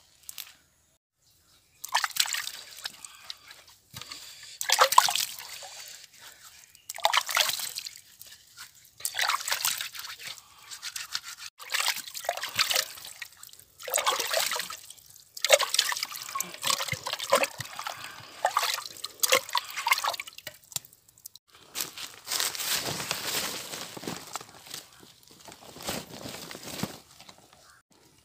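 Water sloshing and splashing in a clay pot as a hand works in it, in repeated bursts every couple of seconds, with trickling between them.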